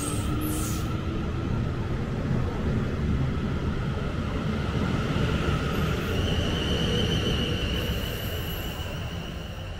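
South Western Railway electric multiple-unit train pulling out of the platform and running past: a steady rumble of wheels on rail with whining tones over it, a higher whine coming in about six seconds in. It starts to fade near the end as the last car goes by.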